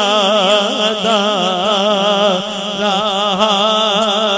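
A male naat reciter singing into a microphone, drawing out one long, ornamented line with the pitch wavering up and down without a break.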